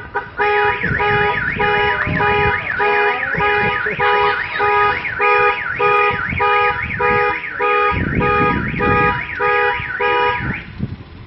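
Electronic alarm sounding: a fast warbling tone over pulsed beeps, repeating about twice a second, then stopping near the end.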